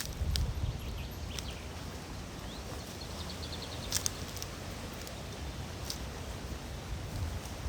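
Outdoor ambience: a low wind rumble on the microphone, a few faint high bird chirps and scattered sharp clicks.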